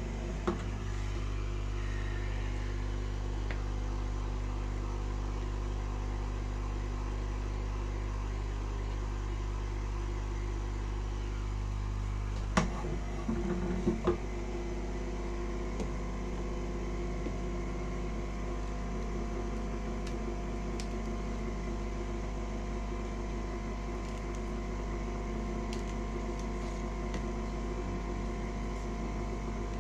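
Steady electric hum of a running appliance, with a few clicks and knocks about twelve to fourteen seconds in, after which the lowest part of the hum drops away.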